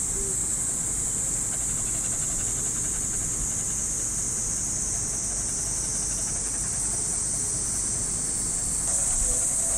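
Cicadas buzzing in a steady, unbroken high-pitched drone, over a low background rumble.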